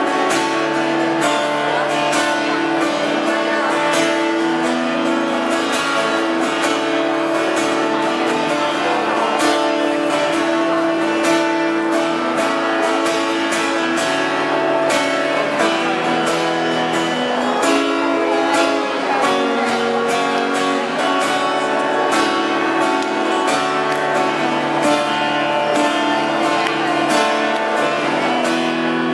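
Acoustic guitar strummed in a steady rhythm, with a harmonica in a neck holder playing long held notes over it.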